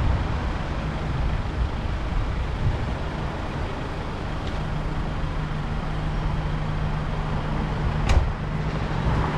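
Road traffic noise close behind a London TX4 black cab standing at a red light, with a steady low diesel-engine hum from about halfway in. A single sharp knock comes near the end.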